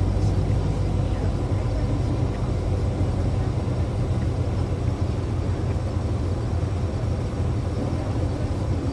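Steady road noise inside a moving car's cabin: a low rumble of engine and tyres on the road, with no breaks.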